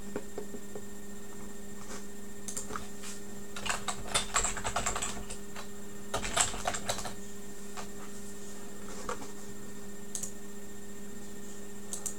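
Computer keyboard being typed on in two short bursts, with a few scattered key clicks before and after, over a steady low electrical hum.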